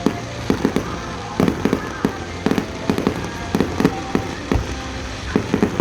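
Fireworks display: quick, irregular volleys of sharp bangs and pops, several in a row, coming in clusters with short gaps between them.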